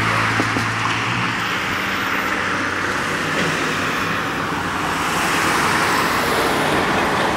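Road traffic: cars passing on the asphalt with steady tyre noise. A low engine hum fades out about a second in, and a box truck goes by near the end.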